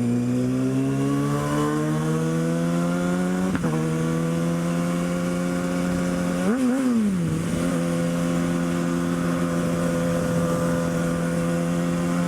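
Kawasaki ZX-6R's inline-four engine running under way. Its pitch rises steadily for the first few seconds and breaks sharply near four seconds, as at a gear change. It rises and falls briefly a little after six seconds, then holds a steady note.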